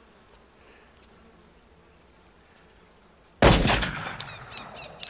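A single handgun shot about three and a half seconds in, loud and sudden, with an echoing tail that dies away over about a second. Before it there is only faint outdoor background.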